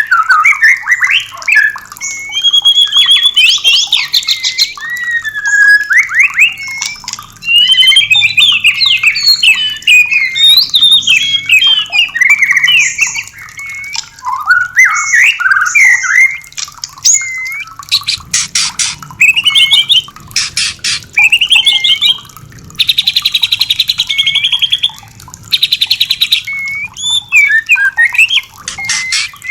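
White-rumped shama singing a fast, varied song of whistled phrases that glide up and down. Around the middle the song breaks into dry rapid rattling, then harsh buzzing rattles a few seconds later.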